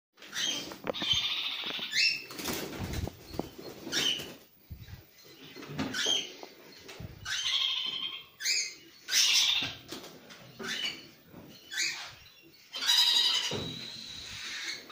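Hand-reared young parrots begging while being fed formula from a syringe: repeated short squeaky calls, about one a second, with wings flapping.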